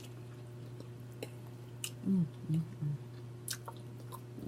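Close-miked chewing with small wet mouth clicks, and three short hummed "mm" sounds in a row about two seconds in, over a steady low hum.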